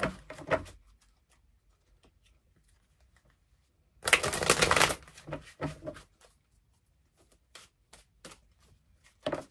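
A deck of oracle cards being riffle-shuffled, one dense burst of riffling about four seconds in, followed by light scattered taps and flicks as the cards are handled and drawn off the deck.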